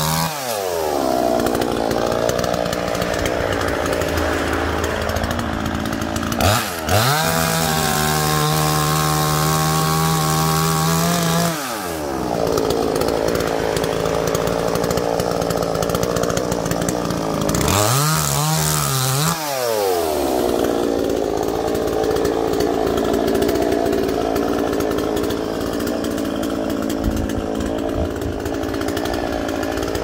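Battery-powered chainsaw cutting through a dead tree trunk near its base. The motor's whine sags lower under load in the cut. Twice it rises to a steady higher whine as the saw eases off, about a quarter of the way in and again past the middle, then drops back into the cut.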